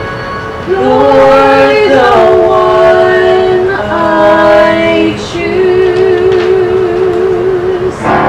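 A man and a woman singing a stage duet over musical accompaniment, in long held notes. The last note wavers with vibrato for nearly three seconds.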